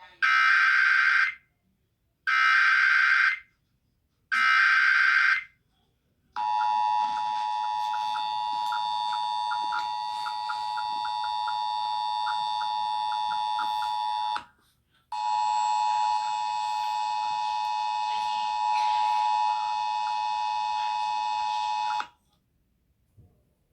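Emergency Alert System tones: three short, harsh digital SAME header bursts about a second each, then the steady two-tone attention signal, sounding for about eight seconds, breaking off briefly, and sounding again for about seven seconds.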